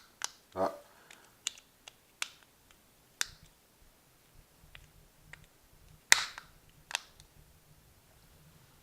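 Small sharp plastic clicks and snaps from a Nissan Armada key fob's case being handled and pressed back together after a battery change, a few scattered clicks with the loudest snap about six seconds in.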